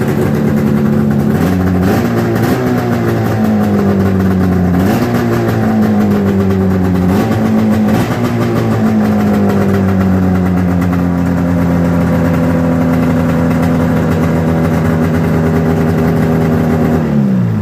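A 1995 700 two-stroke snowmobile engine running freshly started, blipped up in revs several times in the first eight seconds, then holding a steady idle until it winds down and stops near the end. It fires and runs cleanly on a newly fitted coil pack.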